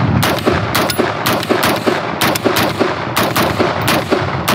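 Smith & Wesson M&P15 Sport II AR-15 rifle in 5.56 mm firing a rapid, steady string of semi-automatic shots, about three to four a second.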